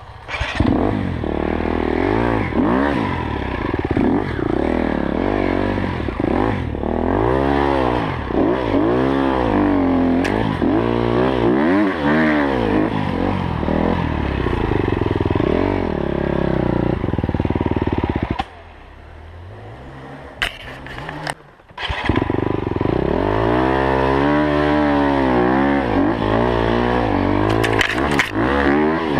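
Enduro dirt bike engine heard from the rider's helmet, revving up and down over and over as it is ridden over rough trail. About two-thirds of the way through the engine drops away to a low note for a few seconds, then revs up again.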